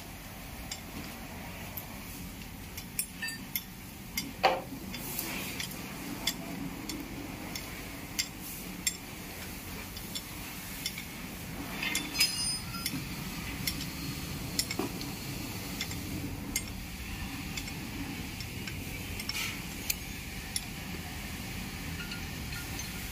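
Metal engine parts and hand tools clinking and tapping as they are handled during engine assembly: scattered light metallic clicks, the sharpest about four seconds in and again around twelve seconds.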